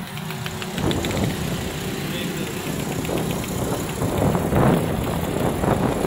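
Busy street traffic: motorcycles, auto-rickshaws and cars running, a steady low rumble with passing swells.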